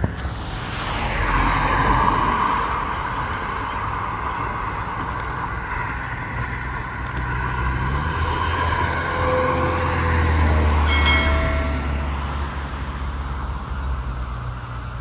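Road traffic passing on a busy road: cars driving by with tyre and engine noise, one passing close in the first couple of seconds and a low engine rumble swelling in the middle.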